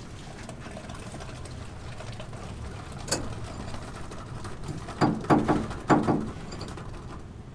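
Construction-site work noise: a steady low hum, a sharp knock about three seconds in, then three loud clanks with a brief ring in quick succession near the end.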